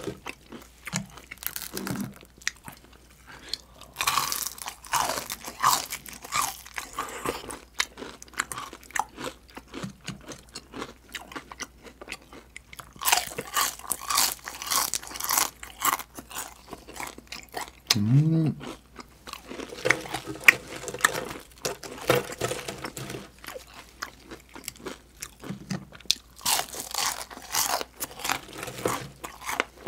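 Crisp deep-fried chicken skin being bitten and chewed close to the microphone: several bouts of loud crunching, with quieter chewing between them.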